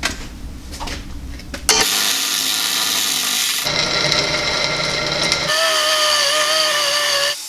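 Power tools running in several short clips one after another, changing abruptly every second or two. In the last clip a tool motor whines at a steady, slightly wavering pitch.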